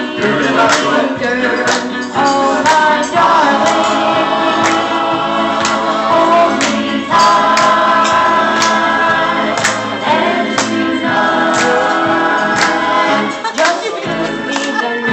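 A boy singing into a microphone over backing music with a steady beat, holding several long notes.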